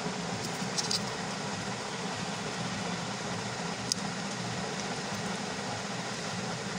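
Steady background noise, with brief faint crinkles of a small sheet of paper being folded by hand, once about a second in and again near four seconds.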